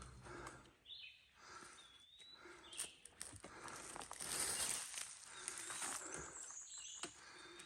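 Footsteps on a woodland dirt trail, a soft scuff and crunch about once a second, with a few short high chirps scattered through.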